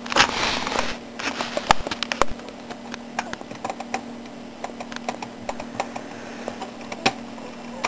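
Irregular clicks and knocks of plastic parts being handled, with a rustle in the first second, as the wire connectors are tugged on an Xbox 360 disc drive. A steady low hum runs underneath.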